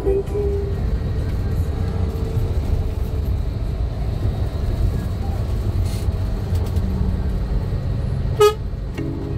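Steady low rumble of a vehicle on the road, with one short horn toot near the end.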